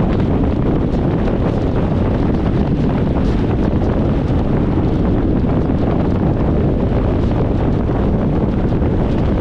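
Steady low rumble of a car driving along, road and engine noise without any change in pitch or level.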